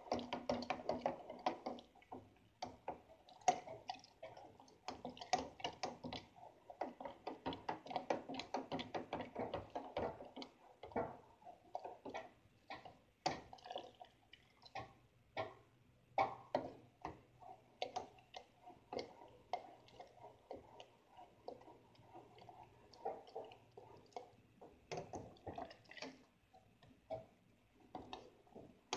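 A spoon stirring hot chocolate in an aluminium saucepan: quick, uneven clicks and scrapes of the spoon against the metal sides, with the liquid swishing.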